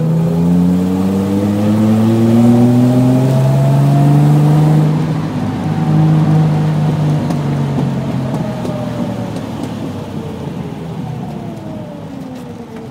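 Triumph GT6's 2.0-litre straight-six heard from inside the cabin, its engine note rising under acceleration for about five seconds. It dips briefly, then falls steadily as the car slows for a hairpin bend.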